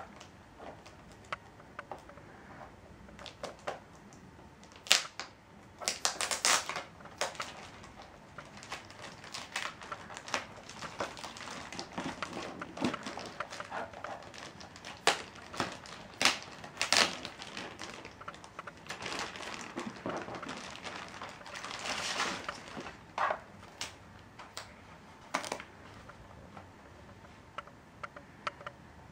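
Clear plastic bag crinkling and rustling in irregular bursts as hands peel it off a laptop, with scattered sharp clicks and light knocks from handling.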